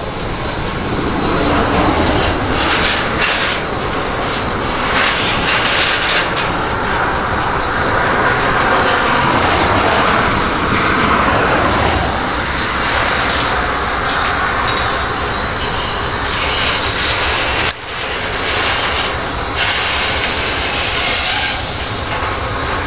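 Wind buffeting the microphone over the rumble of a slow freight train of covered hopper cars rolling past on the rails, with a brief dip in level about eighteen seconds in.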